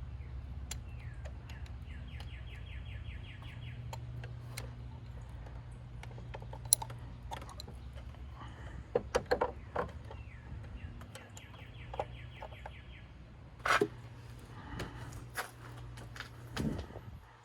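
Sharp metal clinks and knocks of hand tools working in the engine bay over a steady low hum that stops just before the end. Twice, a bird in the background sings a short rising note followed by a rapid trill.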